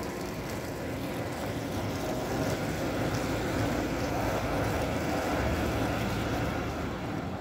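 Articulated tram running past on street rails over wet pavement: a steady rumble of wheels and drive that swells a little through the middle.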